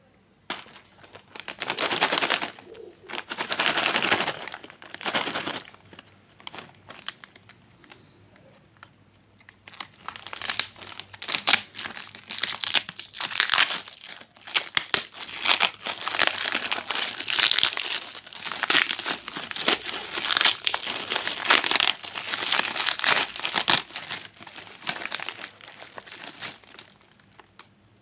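Plastic and foil candy wrappers crinkling and tearing as sweets are unwrapped. There are a few bursts in the first several seconds, then a lull, then a long busy stretch of crackling and rustling that dies away near the end.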